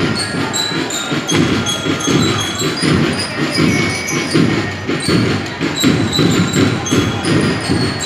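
A school marching band playing, with drums beating throughout and short high melodic notes above them.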